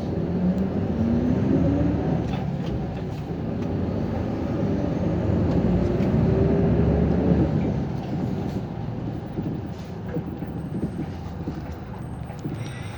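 City bus pulling away, heard inside the cabin: the engine note rises twice as it accelerates through the gears, then drops away about eight seconds in as the bus eases off.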